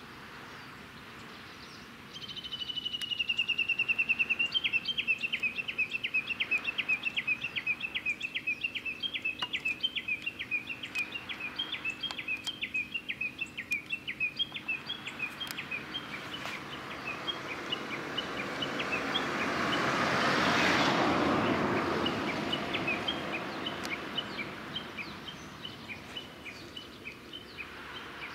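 A bird calling in a long run of quick, repeated high chirps. It starts about two seconds in with a rapid trill and keeps going steadily. Partway through, a broad whoosh of noise slowly swells up and dies away again.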